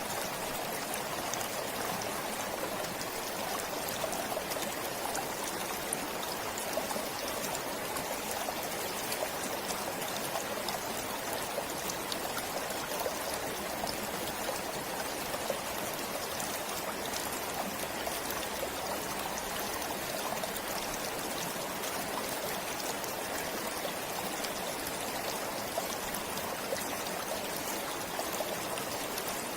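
A stream flowing steadily, with water trickling and splashing over stones.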